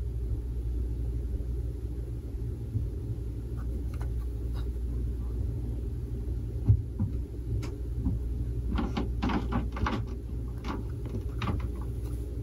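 Fingers turning and handling a hard plastic graded-coin slab, giving light clicks and taps: one sharper tap about halfway through and a run of them near the end, over a steady low rumble.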